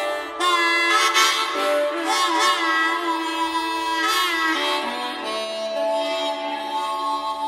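Background music: a reedy, harmonica-like melody with gliding, wavering notes over held tones.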